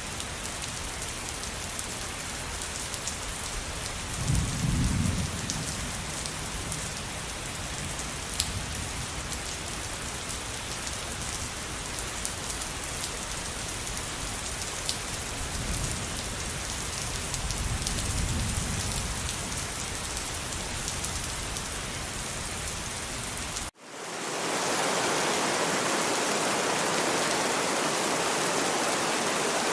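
Steady rain with thunder rumbling twice, about four seconds in and again around seventeen seconds. Near the end it cuts suddenly to a louder, steady rush of water.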